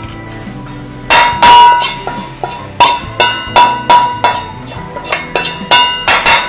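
Steel kadai knocked again and again against a steel plate as roasted dried red chillies are tipped out of it, each knock ringing like a bell. About a dozen knocks, two or three a second, starting about a second in.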